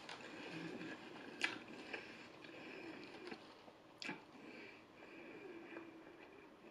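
Quiet close-up chewing of fried chicken fingers, with a couple of soft mouth clicks.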